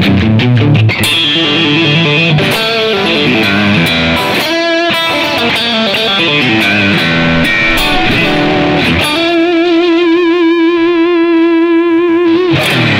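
Tokai AST-52 electric guitar played on its neck and middle single-coil pickups through an overdriven Yamaha THR amp: quick single-note lead runs, then about nine seconds in a long held note with wide vibrato that stops near the end.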